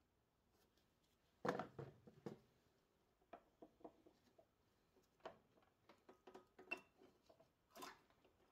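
A few sharp knocks of a hammer on a flat bar wedged under an engine valve cover about a second and a half in, then sparse faint clicks and scrapes of the bar against the cover. The cover is stuck on with RTV sealant and is being broken free.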